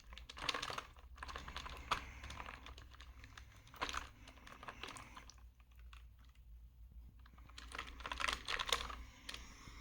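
Computer keyboard keys clicking and rattling irregularly as a cleaning gel is pressed down onto them, with a quiet spell midway and a busier run of clicks near the end.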